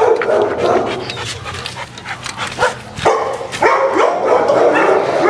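Several dogs barking repeatedly at once.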